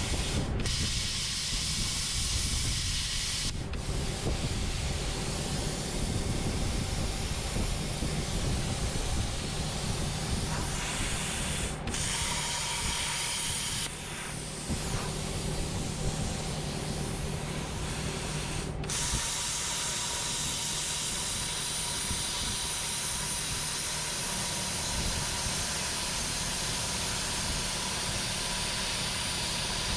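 Steady loud hiss of metalworking on the steel mower mounting bracket, broken by several abrupt cuts.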